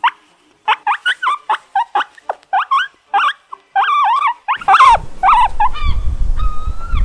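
Meerkats calling: a quick run of short, high chirps, about three a second. About halfway through, a low wind rumble on the microphone comes in, and the calls turn to a few longer, steadier peeps.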